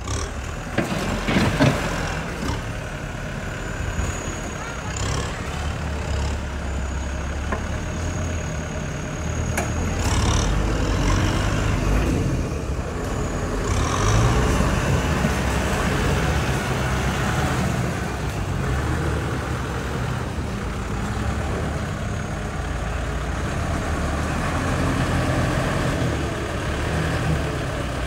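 Diesel engines of heavy earthmoving machinery running with a steady low rumble. A thin high squeal comes a few seconds in, and a sharp clank about ten seconds in.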